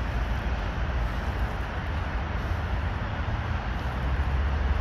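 Steady low rumble of outdoor urban background noise, with no distinct event.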